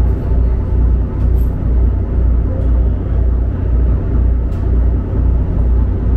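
Water bus's engines running as the boat gets under way: a loud, steady low rumble that throbs about twice a second.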